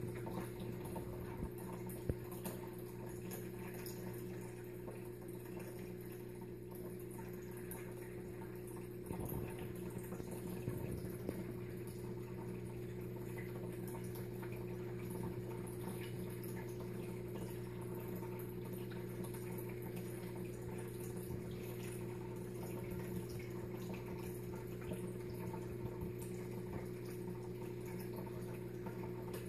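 Steady low hum with a faint watery trickle, and a few soft clicks about two seconds in and again around ten seconds.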